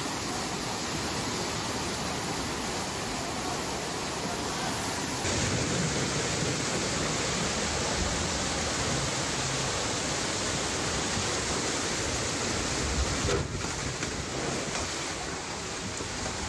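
Steady rushing noise of fast-flowing floodwater. The sound changes abruptly about five seconds in, where one stretch of footage cuts to another of the same kind of noise.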